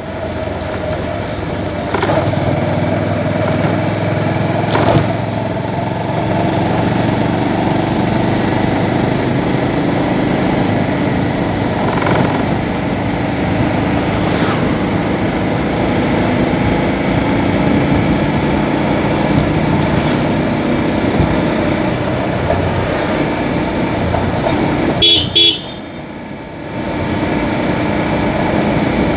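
Motorcycle engine running steadily as it rides along, heard from the rider's seat with road and wind noise. A horn beeps twice in quick succession near the end, and the engine goes quieter for a second or two just after.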